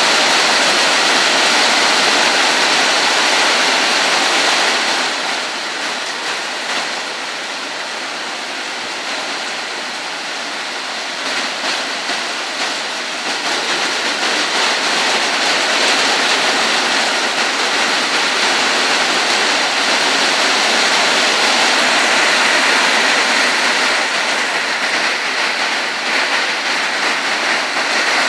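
Heavy thunderstorm rain pouring down steadily, easing slightly about five seconds in and building back up after about twelve seconds.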